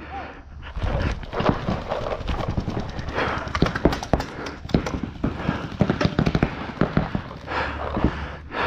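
Paintball markers firing in quick strings of sharp pops, with paintballs slapping against inflatable bunkers, among the rustle and rattle of a player running in behind a bunker.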